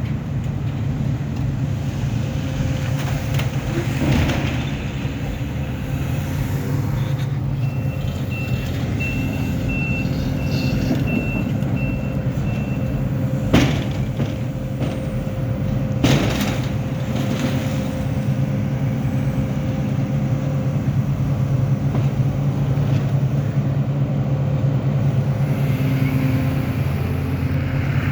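Sumitomo SH300 excavator's diesel engine running steadily, with a run of short high beeps, about two a second, for some five seconds a little after a quarter of the way in. Two sharp knocks come about halfway and again a few seconds later.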